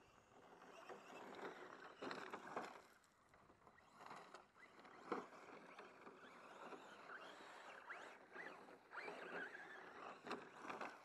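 A radio-controlled scale truck's small electric motor and gears whining in uneven bursts as it is driven, the pitch rising and falling with the throttle. There is one sharp knock about five seconds in.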